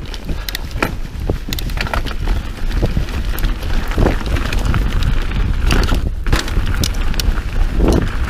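Mountain bike rolling fast down a dirt trail, heard from a camera on the rider: a steady rumble of wind on the microphone and tyres on dirt, with frequent sharp clicks and rattles from the bike over the bumps.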